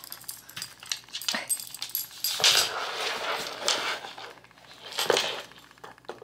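A large dog sniffing and snuffling at a small battery-powered toy hamster on a tile floor, with two louder breathy sniffs and scattered light clicks from the toy and the dog's collar tags.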